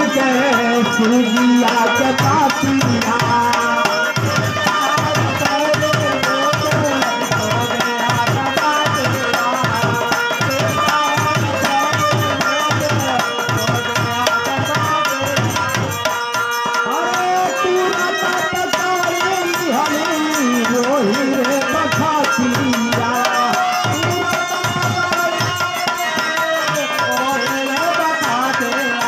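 Live devotional folk music: a hand drum keeps a steady beat of about two strokes a second under a melody of held, bending notes.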